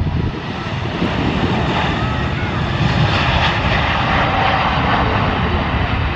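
An Emirates Airbus A380's four jet engines at take-off power, a loud, steady noise.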